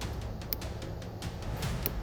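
Quiet background music with a low pulsing beat and a few faint clicks.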